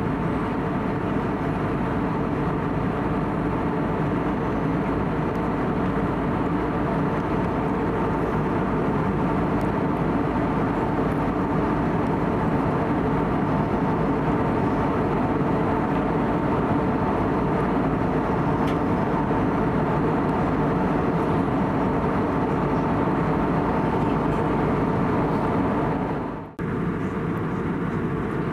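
Steady cabin noise of an Airbus A320-251N in flight: rushing air and the drone of its CFM LEAP-1A engines. The sound drops out for an instant near the end.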